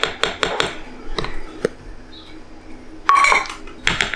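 A metal measuring cup knocking and scraping against a plastic flour container and a metal sieve as flour is scooped and tipped in: a quick run of small clicks and knocks, then a louder clink with a short ring about three seconds in.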